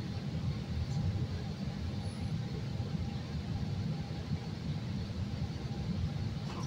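Steady low rumble inside a CTA Red Line rail car, with a faint steady hum, as the train comes to a stop at the station platform.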